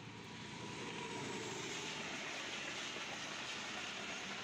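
Diesel-hauled passenger train passing at speed close by: the locomotive and then its carriages rushing past on the rails. The sound swells over the first second, then holds as a steady rushing rumble.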